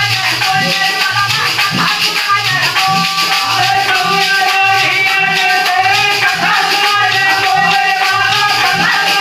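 Dehati thali Ramayan folk singing: a man's voice sings a held, wavering devotional line over a steady dholak beat and a constant metallic rattling percussion.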